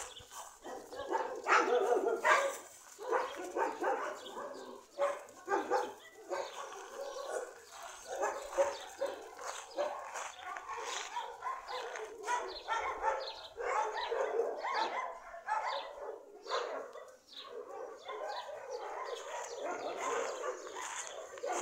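Dogs barking, many short barks in quick succession.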